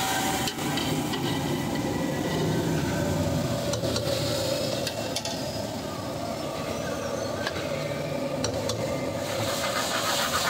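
Open gas burners under cooking pans giving a steady rush of flame noise, with pans simmering and a few sharp metal clinks of ladle and tongs against the pans.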